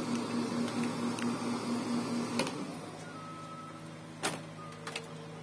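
Steam iron pressing fabric: a steady hiss of steam with an electric buzz, stopping with a click about two and a half seconds in. A sharp knock follows about four seconds in, then two light taps.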